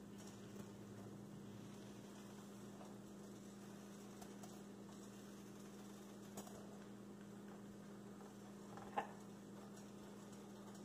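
Near silence: a faint, low, steady hum, with two faint taps about six and nine seconds in.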